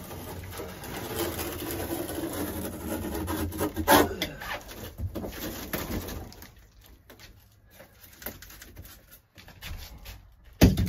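Camper ceiling trim and panel creaking and scraping as they are pried and pulled away from the rafters, with a sharp crack about 4 seconds in. It goes quieter after that, and a sharp knock near the end is the loudest sound.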